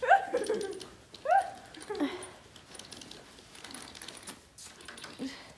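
A girl's short squeals and giggles, three in the first two seconds, as a horse nuzzles her face, followed by quieter soft smacking and rustling from the horse's lips.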